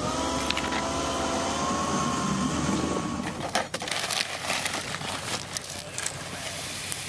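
A motor runs with a steady, slightly wavering hum for about three seconds. Then irregular crunching and scraping with many sharp clicks takes over.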